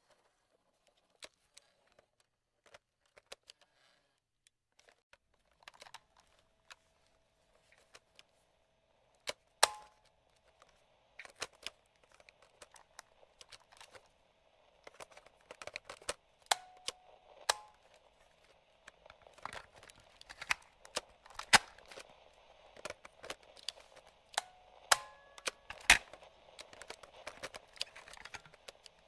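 Vintage radio-cassette recorder controls being worked by hand: the radio's slide switch and the cassette deck's piano-key levers click and clack many times, more busily in the second half. From about six seconds in, a faint steady hum with a light hiss runs under the clicks.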